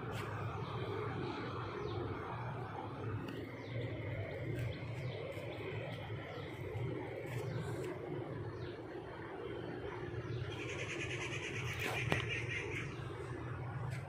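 Outdoor ambience under a steady low hum, with scattered bird chirps and a rapid, evenly pulsed high trill for about two seconds near the end.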